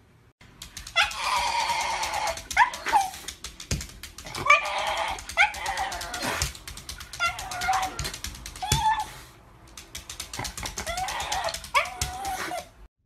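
A black-and-tan Shiba Inu whining and crying in four long, wavering bouts of a couple of seconds each.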